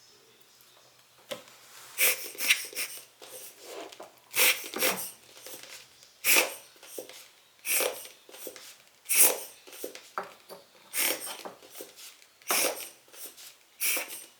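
Cleaning strokes on a camera lens's glass: a run of short hissing strokes, about one every second and a half.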